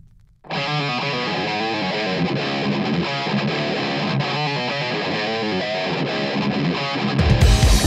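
A distorted electric guitar riff starts about half a second in, sounding thin and without bass. Shortly before the end, deep bass hits come in as the full heavy rock band starts.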